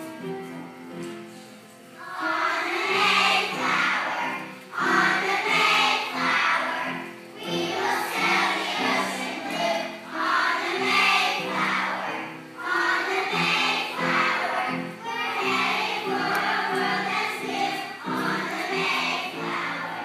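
Children's choir singing together over an instrumental accompaniment. The voices come in about two seconds in, in short phrases of a couple of seconds each.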